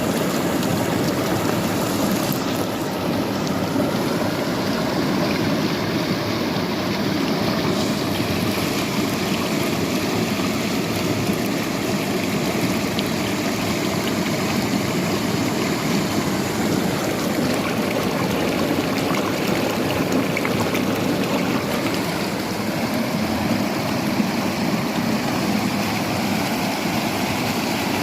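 Water flowing steadily, an even, unbroken rushing sound.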